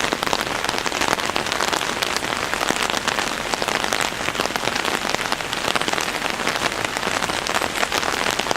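Heavy rain falling steadily, a dense crackle of many separate drops striking close by.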